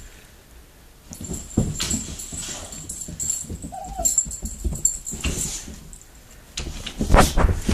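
Boxer dog whimpering and huffing in excitement at feeding time, with scattered scuffling. There is one short high whine about four seconds in, and louder bursts near the end.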